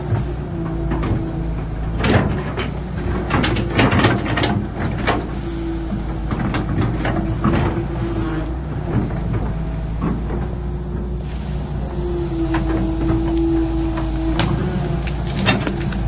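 Excavator running: a steady low diesel engine rumble with a hydraulic whine that rises and holds now and then, and a run of metallic clanks and knocks a few seconds in and again near the end.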